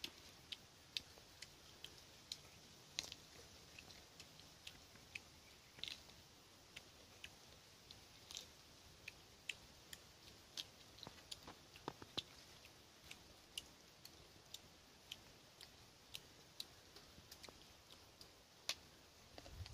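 Faint, irregular crisp clicks of someone chewing raw figs, a few each second, over near silence.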